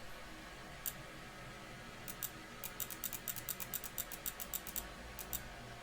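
A computer keyboard key tapped repeatedly: a single click about a second in, then a quick run of clicks, several a second, and two more near the end. This is typical of pressing R to rotate a part in Tinkercad.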